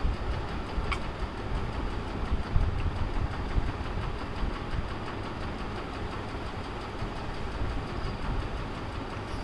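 Steady low rumbling background noise, with a faint click about a second in as small plastic paint jars and a plastic box are handled.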